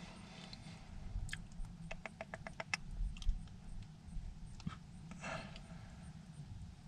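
Faint clicks and light handling noises of small tools and parts being worked by hand, including a quick run of about eight light ticks a second or so in and a short rustle near the end.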